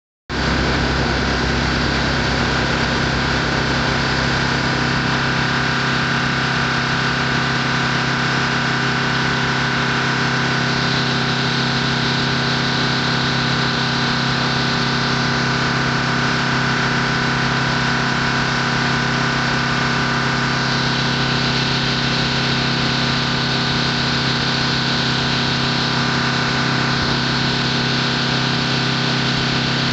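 An engine idling steadily, holding the same speed throughout.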